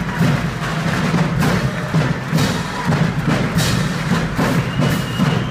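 Military brass band playing on the march: sousaphones carrying a strong bass line under saxophones, with drums keeping a steady beat.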